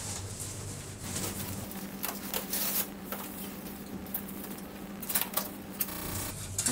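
Cardboard boxes and packing being handled: irregular rustling and scraping with a few light knocks as a box is lifted out and opened.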